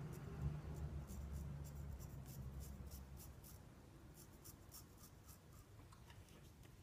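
Riccardo Tonarini Lobster quarter-hollow straight razor scraping through beard stubble in a series of short, crisp strokes. A low hum sits under the first three seconds, then fades.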